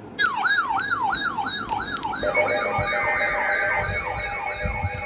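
Electronic emergency alert sounding: a siren-like yelp sweeping rapidly, about four times a second. About two seconds in, a steady multi-tone alert tone joins it, and further tones are added near the end.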